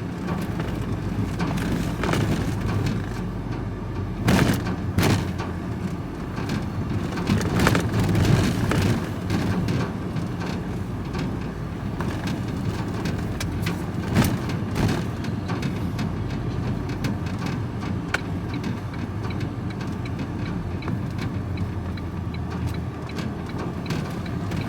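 Engine and road noise heard from inside a moving vehicle's cab, steady and low. There are a few sharp knocks and rattles: a pair about four and five seconds in, a cluster around eight seconds, and one near fourteen seconds.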